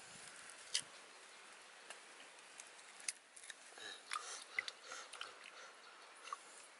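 Quiet scene with scattered faint clicks and ticks from a small wood fire crackling, and a few short bird chirps.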